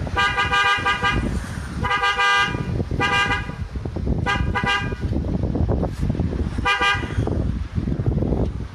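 Nissan Livina's car horn sounded in six honks: three longer ones, a quick double, then one more. The horn is working after its flexible horn cable in the steering wheel has been replaced.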